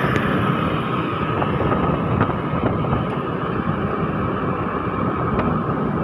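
Motor scooter running steadily as it is ridden along a road, with a steady whine over the rush of road and wind noise.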